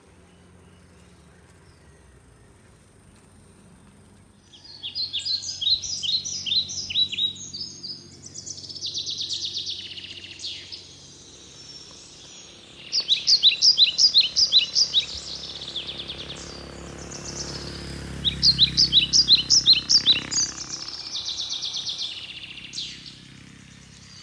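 A songbird singing in bouts of quick, repeated high notes and trills. Three louder runs stand out, with softer phrases between them, over a faint low hum. The singing starts a few seconds in.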